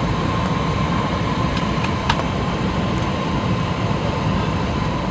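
Steady cabin noise of a passenger plane in flight: a constant rush of engine and airflow with a faint steady whine, and a few light clicks, one about two seconds in.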